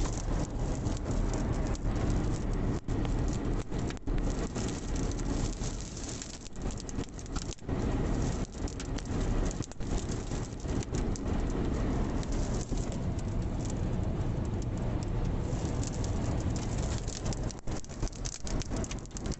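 Storm wind blowing hard against the microphone, with many sharp little hits throughout from sand or rain striking.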